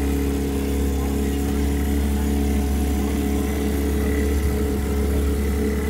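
Boat engine running steadily under way, an even low hum that holds one pitch throughout.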